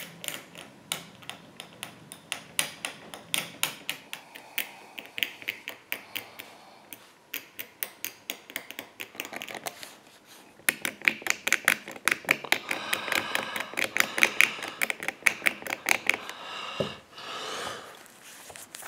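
Small blade scraping wax residue off the surface of an oil painting on canvas: quick short scratching strokes, several a second, louder and busier from about halfway through.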